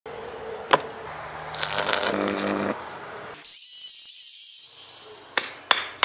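Hand-tool work on a microwave oven transformer: a sharp knock, a few seconds of scraping, then a steady high hiss lasting about two seconds. Near the end come two sharp metal knocks as a metal rod is struck against the transformer's core.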